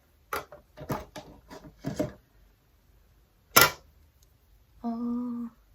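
Small plastic cosmetic packaging handled: a run of light clicks and rustles, then one sharp loud snap a little past the middle. Near the end comes a short, steady pitched hum.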